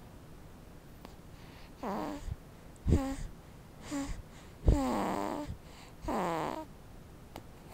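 Sleeping baby making a string of about five short squeaks, grunts and whimpers, several sliding down in pitch, with a couple of soft low bumps as he moves.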